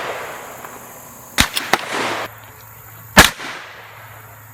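Gunshots: a sharp crack about a second and a half in, followed quickly by two fainter cracks, then a single louder shot about three seconds in.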